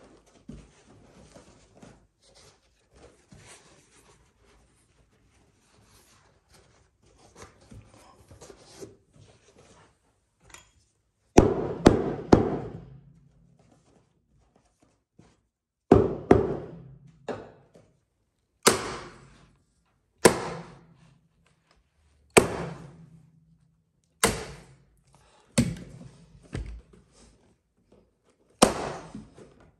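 About a dozen sharp knocks from about eleven seconds in, irregularly spaced one to two seconds apart, each ringing briefly. They are work on a carpet runner over wooden stairs, fastening it down. Before them there is only faint handling rustle.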